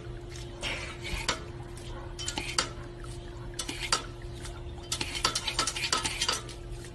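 A dog working a plastic step-on water fountain fed by a garden hose, with a run of irregular sharp clacks and clatters as the pedal and box are knocked, mixed with splashing as it snaps at the spurting jet of water.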